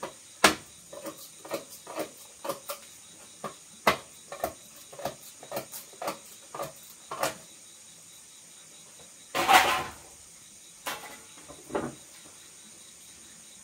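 A blade chopping at a bamboo pole: a run of sharp knocks, about two a second, then a louder rasp of about half a second and a few more knocks near the end.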